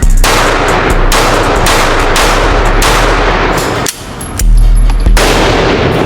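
A string of handgun shots fired one after another at a steady pace, each sharp crack followed by a long echo off the range.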